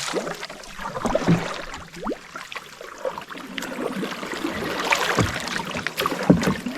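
Canoe being paddled through a narrow creek: scattered paddle splashes, knocks and scrapes against the hull.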